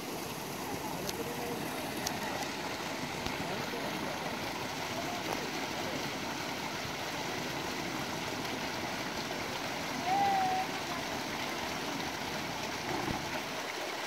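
Water running steadily from a spring box's pipe outlet into a rocky stream bed. Faint voices are mixed in, with a short high call about ten seconds in.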